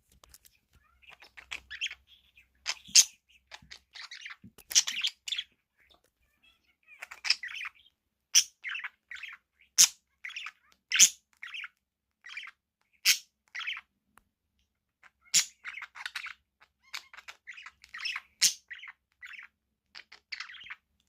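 Budgerigars chattering and chirping in quick, busy bursts, with short sharp calls scattered through.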